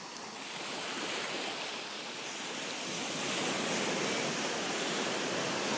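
Small waves breaking and washing up a sandy beach, a steady rush of surf that swells louder about three seconds in.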